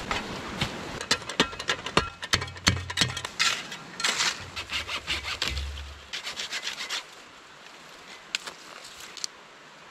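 A snow shovel scraping and crunching through snow, then a hand saw rasping through a dead branch in short, quick strokes. It goes quieter after about seven seconds, with only a few scattered clicks.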